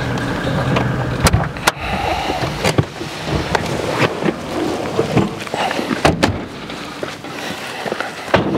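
A vehicle driving over a rough track: the engine runs steadily under repeated knocks and rattles from bumps.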